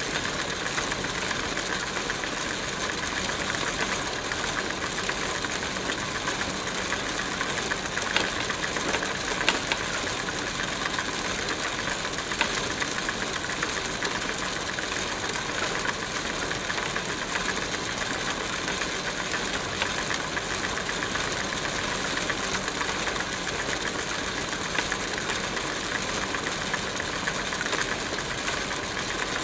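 Bicycle being ridden: a steady rattling whir from the chain, drivetrain and tyres, with a few sharper clicks about a third of the way through.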